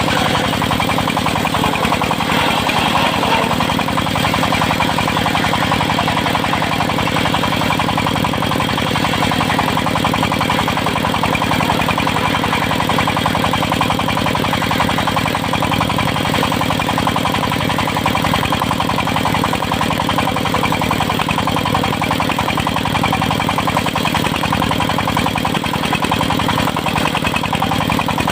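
Engine driving a circular-saw sawmill, running steadily at an even speed with a fine, regular firing pulse.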